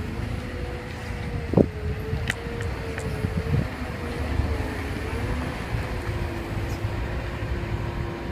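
Cat M315D wheeled excavator, rebuilt as a UNAC rail machine, running its diesel engine and hydraulic drive as it rolls slowly: a steady low engine rumble with a whine that wavers slightly in pitch. A single knock comes about one and a half seconds in.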